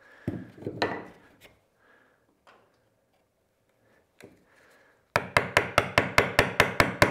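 Wooden mallet striking the handle of a 12 mm chisel, chopping out the waste of a bridle joint in softwood. A few softer knocks and scrapes come first, then a short pause, then from about five seconds in a fast, even run of sharp blows, about five or six a second.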